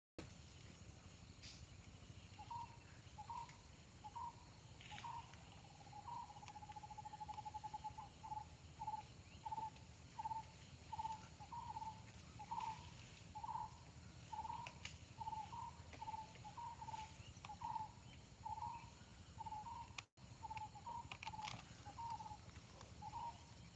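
An animal calling in a steady series of short, single-pitched notes about twice a second. One long rapid trill near the start interrupts the series.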